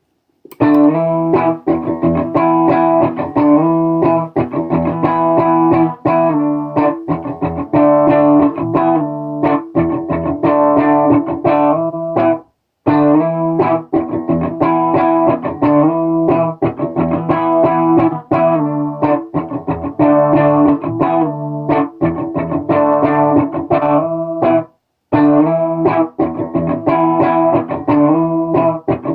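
Electric guitar playing the same short picked phrase three times through a Donner Harmonic Square pitch-shifter pedal, with brief silences between: first clean, then detuned down, then detuned up.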